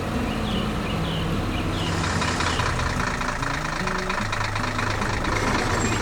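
Heavy construction machine's engine running steadily, a sound effect laid over background music with bird chirps.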